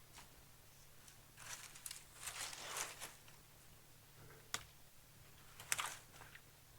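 Soft rustling and scraping of a marker being hung on a pine tree, with two sharp clicks in the second half, over a faint steady low hum.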